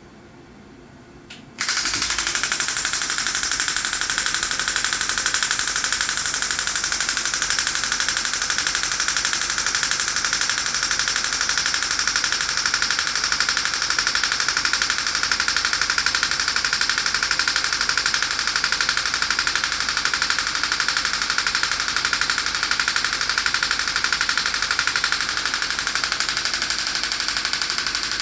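Storz Medical radial shockwave therapy handpiece firing its compressed-air-driven pulses in a rapid, steady rattle of clicks, starting suddenly about a second and a half in.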